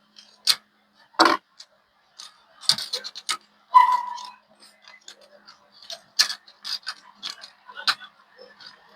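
Scattered clicks, taps and knocks of small laptop parts and tools being handled on a workbench, with one short ringing clink about four seconds in.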